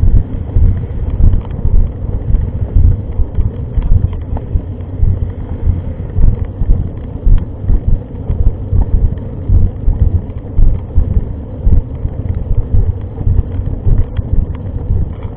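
Wind buffeting the microphone as a low, irregular, gusting rumble, typical of a camera carried on a moving mountain bike.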